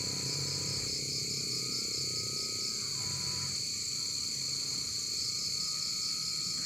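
Steady, high-pitched insect chirring with a fast pulsing trill, over a lower animal-like drone that comes and goes in stretches of about a second.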